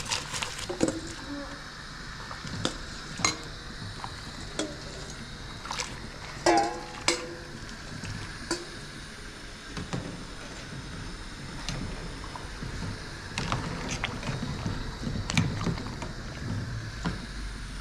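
Kitchen clatter: dishes, pots and utensils knocking and clinking, with one ringing clink about six and a half seconds in, over a steady low hum.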